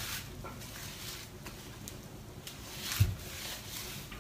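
Faint wet rubbing of fingertips scrubbing a shampooed dog's fur, with one dull thump about three seconds in.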